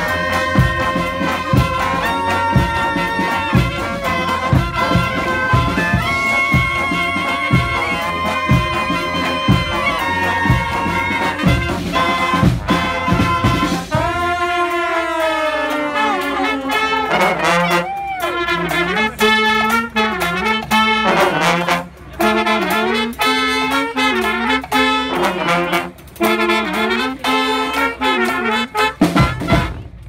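Street brass band of saxophones and trombones playing a tune in full chords over a steady beat. About halfway through the beat drops out and the horns slide down in pitch together, then play short punchy notes until the tune cuts off suddenly near the end.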